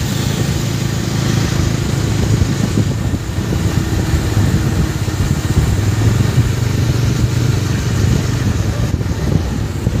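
Motorcycle riding at road speed: its engine running steadily, under a dense low rumble of wind on the rider-mounted microphone.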